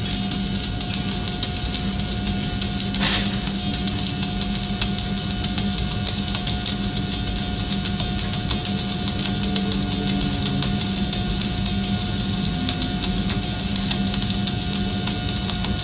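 Flux-cored wire arc welding: the arc's steady crackling hiss over a constant hum, with a brief louder flare about three seconds in, while laying the vertical root pass that forms the back bead on a butt joint.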